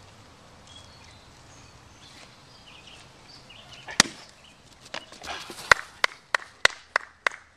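A single sharp knock about four seconds in, then a man clapping his hands, six sharp claps about three a second, near the end.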